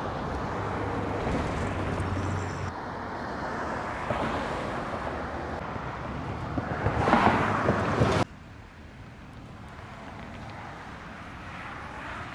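Road traffic with wind on the microphone: a steady rush of passing vehicles, one swelling up close and passing about seven seconds in. The sound cuts off suddenly just after, leaving a quieter, more distant traffic hum.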